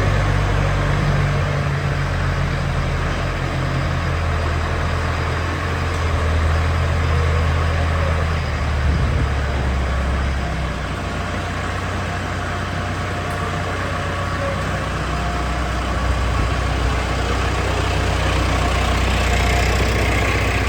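A heavy diesel engine running steadily, its low note shifting once about halfway through.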